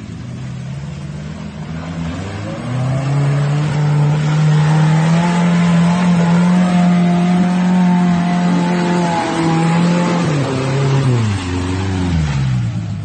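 A vehicle engine revving: its pitch climbs a few seconds in, stays high and steady under load for about six seconds, then drops back toward idle near the end.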